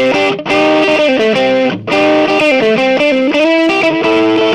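Schecter C6 Plus electric guitar on its middle pickup position, played through a Marshall Origin 50 amp with distortion: a lead lick of held single notes stepping up and down in pitch, broken by two short gaps.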